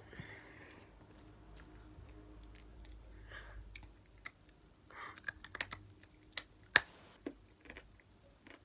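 Crunchy puffed snack pieces being bitten into and chewed close up: a run of sharp crunches and crackles about halfway in, the loudest one near the end of that run.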